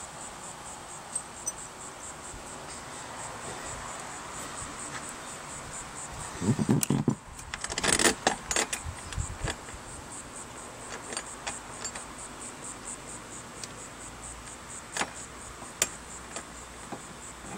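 Small metal hardware (bolt, lock washer and galvanized steel bracket) clinking and rattling as it is handled and fitted by hand behind a boat's side panel. A cluster of louder knocks and rattles comes around the middle, followed by scattered single clicks.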